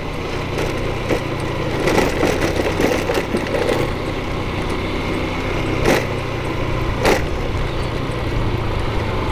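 A vehicle's engine running steadily while driving over a rough, unpaved road, with several sharp knocks and rattles from bumps. The loudest knocks come about six and seven seconds in.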